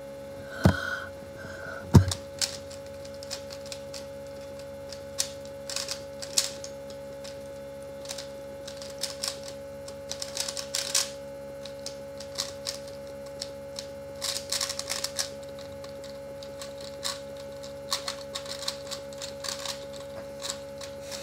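Rubik's cubes being turned fast in a speedsolve: irregular rattling clicks of plastic layers snapping round, in quick runs, with two louder knocks about a second and two seconds in. A steady hum runs underneath.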